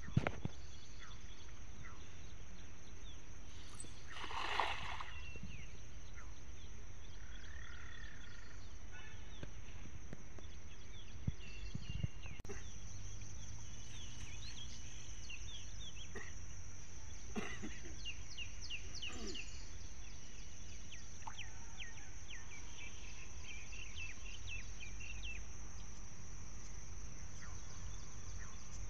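Rural pond ambience: a steady high-pitched insect drone with many short bird chirps, mostly in the second half. A brief rush of splash-like noise comes about four and a half seconds in, when the cast net can land on the water. There are a few small knocks near the start and again around eleven to twelve seconds.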